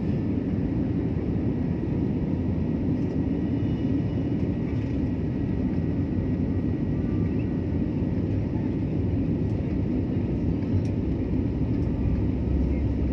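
Steady jet-engine and airflow roar heard inside an airliner cabin in flight, an even low rumble with no distinct events.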